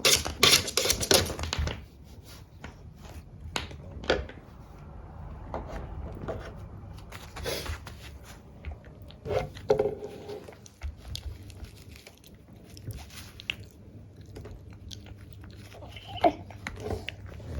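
A dog chewing and gnawing on a toy or object, making irregular crunching clicks. They come thick and fast for the first two seconds, then more sparsely.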